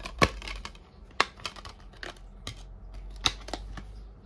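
Plastic packaging being handled: shrink wrap crinkling and a series of sharp clicks, four of them loud, as a Blu-ray case is opened and the disc is taken out.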